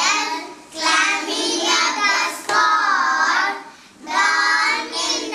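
A class of young children singing a rhyme together in unison, in three phrases with short breaks between them, about a second in and around four seconds in.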